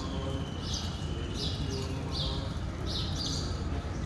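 A bird calling with short high chirps repeated about every three-quarters of a second, over a steady low rumble.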